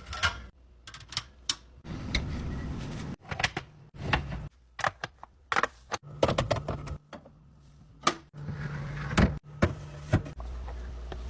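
Food containers being set down and slotted into fridge shelves and door bins: a rapid, irregular run of clicks and knocks.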